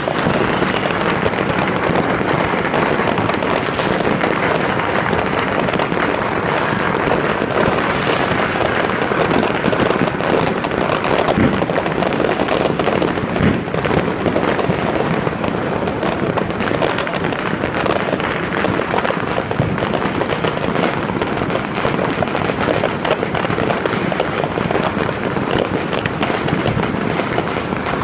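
Many fireworks and firecrackers going off at once, their pops and crackles merging into a steady, dense din with no pauses.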